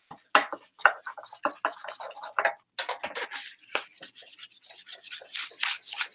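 Dry-erase board being wiped clean with quick, irregular rubbing strokes, without a proper eraser.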